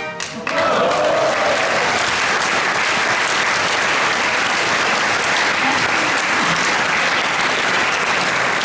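Audience applauding steadily as a song ends, breaking out about half a second in, with a brief voice call among the clapping soon after it starts.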